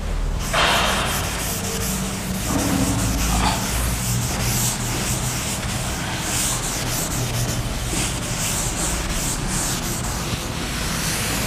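A duster rubbing chalk off a chalkboard in repeated wiping strokes, a dry, steady scrubbing.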